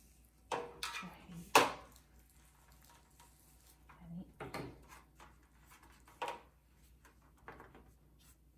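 A metal baking sheet knocking and clattering on a stone countertop as it is shifted and handled. There are a few quick knocks near the start, the loudest about one and a half seconds in, then softer bumps and handling sounds spaced a couple of seconds apart.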